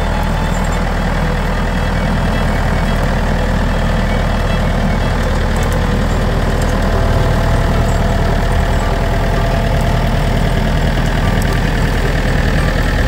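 1981 Case 995 David Brown tractor's four-cylinder diesel engine running steadily.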